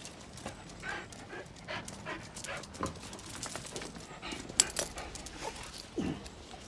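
A dog panting in quick, short breaths, with scattered small rustles and clicks and one sharp click about four and a half seconds in.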